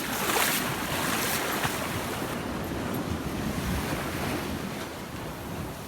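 Sea surf washing onto a sandy beach, with wind buffeting the microphone. The wash is loudest in the first second and a half, then settles into a steady rush.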